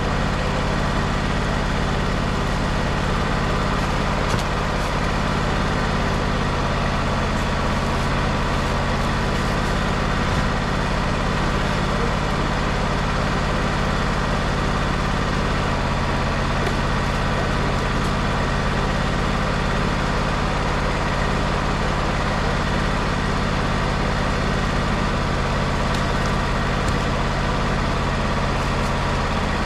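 Wood-Mizer portable band sawmill running steadily, its engine humming evenly while the band blade saws through a log.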